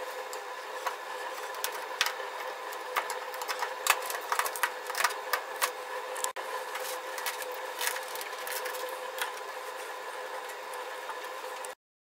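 Putty knife scraping old gasket material off the furnace's metal sealing surface: irregular light scrapes and clicks over a steady hum.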